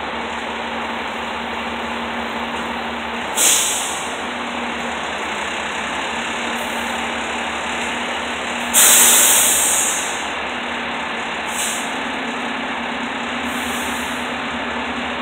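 A parked fire department tower ladder truck's engine idling with a steady hum, broken by sharp hisses of air let out of its air brake system: one about three seconds in, a longer one lasting about a second near nine seconds, and a brief one near twelve seconds.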